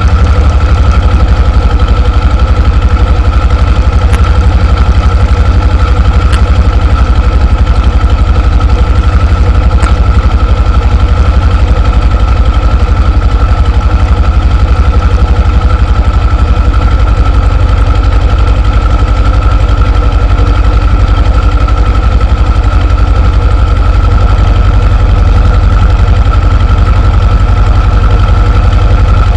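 T-25 tractor's two-cylinder air-cooled diesel running steadily while driving a rotary tiller, with a constant high whine over the engine note.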